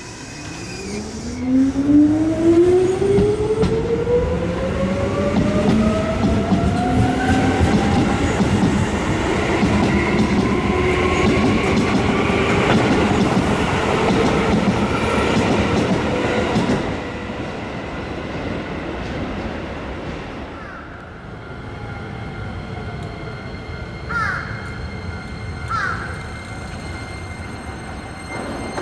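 Keisei Main Line electric train pulling away from the platform: its traction motors whine in several tones that rise steadily in pitch for several seconds as it accelerates, over the rumble and clatter of wheels on rail. The noise drops off about 17 seconds in, leaving quieter steady tones and two short chirps.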